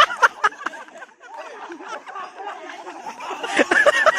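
A group of young men shouting and laughing, with a few sharp knocks in the first half second. The voices drop back in the middle and rise again near the end.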